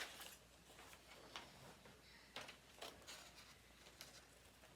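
Near silence of a quiet room, broken by a handful of faint, short clicks.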